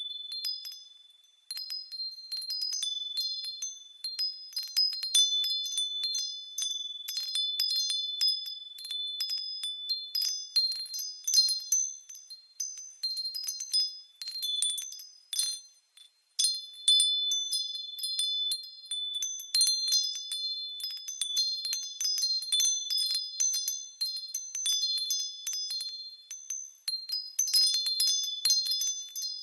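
Wind chimes jingling continuously: many overlapping, high, ringing strikes on a small set of fixed pitches. The sound briefly drops away about one and a half seconds in and again about halfway through.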